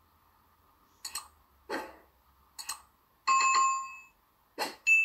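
Subscribe end-screen sound effects: a few short clicks and pops, then a bright bell ding about three seconds in that rings out for under a second. Another pop and a second ding come right at the end.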